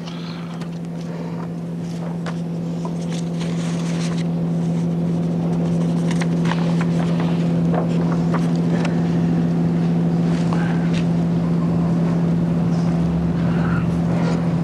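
Steady hum of an overhead projector's cooling fan and lamp, growing louder over the first several seconds, with scattered rustles and light taps of transparency sheets being handled on the projector.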